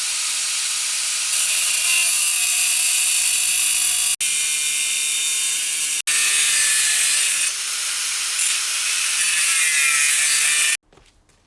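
Angle grinder cutting into the steel spine of a forged glaive blade, a steady high-pitched whine and hiss. It breaks off twice very briefly and stops abruptly near the end.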